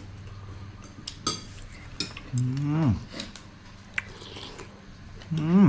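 Metal fork and spoon clinking against a ceramic soup bowl a few times during eating, sharp single clicks with gaps between them. A short voiced exclamation with a rising then falling pitch comes near the middle.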